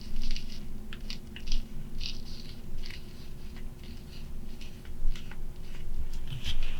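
Plastic parts bags crinkling and rustling in irregular short bursts as small screws and bolts are bagged, over a steady low hum.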